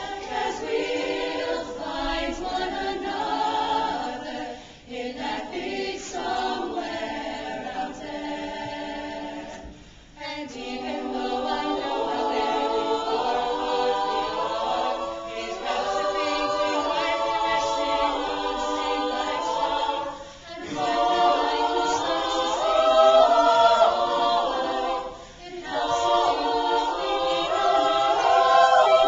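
Women's choir singing sustained phrases, with short pauses between phrases every few seconds, and growing louder near the end.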